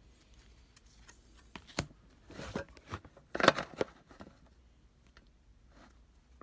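Baseball trading cards being handled and flipped by hand: a sharp click a couple of seconds in, then a few short rustles, quiet between.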